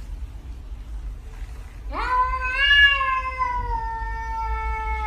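A cat's single long, drawn-out yowl, beginning about two seconds in: it rises sharply, then slowly sinks in pitch over several seconds. A low, steady rumble lies underneath.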